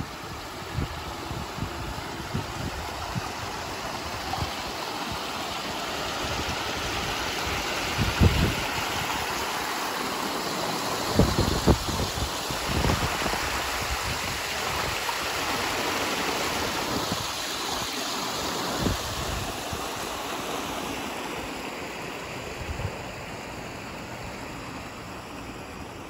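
Water splashing down a rock waterfall and running along a stony stream bed, growing louder toward the middle as the small spill between the boulders comes close, then fading. Gusts of wind rumble on the microphone in irregular low thumps.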